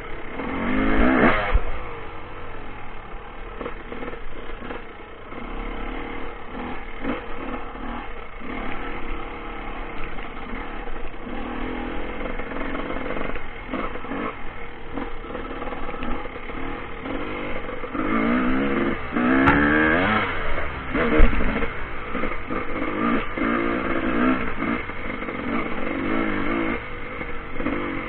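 Dirt bike engine being ridden over a rough trail, its revs rising and falling as the throttle works, climbing hard about a second in and again around twenty seconds in. Rattles and knocks come from the bike over the bumpy ground.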